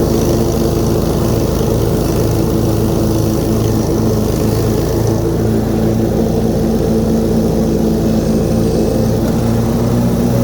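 Snapper 150Z zero-turn mower's 26 hp Briggs & Stratton engine running steadily at high speed with the cutting blades engaged while the mower drives.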